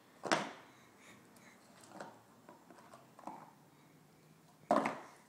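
Toy blocks knocking on a hardwood floor: a louder knock shortly after the start and another near the end, with a few faint taps between.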